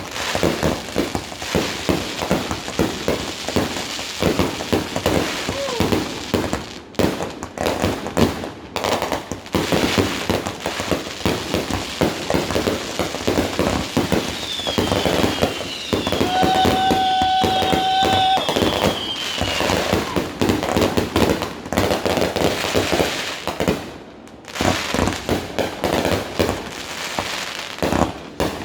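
Fireworks going off in a dense barrage, rapid bangs and crackling with hardly a gap, and a few high whistles gliding downward about halfway through.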